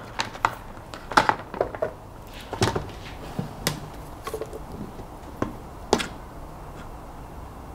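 Light clicks and taps of a flexible LED strip and its wires being handled on a workbench, scattered over the first six seconds or so, then only faint room noise.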